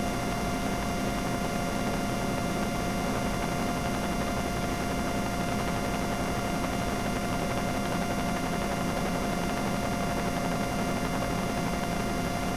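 Helicopter in steady flight, heard from inside the cabin: an even rushing noise with several fixed, high steady tones running through it.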